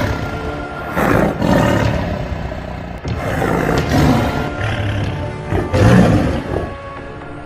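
Tiger roaring in several rough bursts, the strongest about a second in, around four seconds and near six seconds, over background music.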